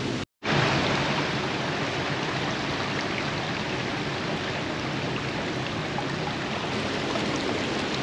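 Steady rushing of a shallow, fast-flowing woodland stream over stones, with a momentary gap in the sound just after the start.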